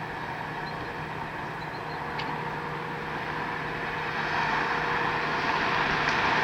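A distant vehicle's rushing drone, growing steadily louder as it approaches, over a faint steady hum.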